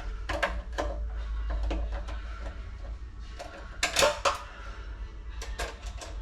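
Tools and metal parts being handled: a run of sharp clicks and knocks, with the loudest cluster about four seconds in, over a steady low hum.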